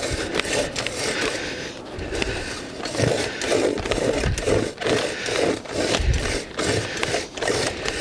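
A 12-inch hand post hole reamer being turned in the ground, its cutters scraping through the soil in a steady run of strokes, about two to three a second, as it bites down quickly.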